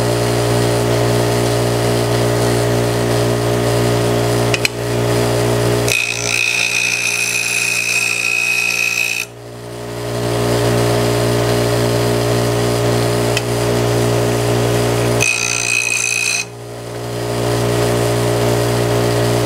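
Craftsman variable-speed bench grinder running with a steady hum. Twice, for about three seconds and then about a second, a steel jack plane iron is touched lightly to the wheel, adding a high grinding whine and hiss, as the camber on its bevel is finished.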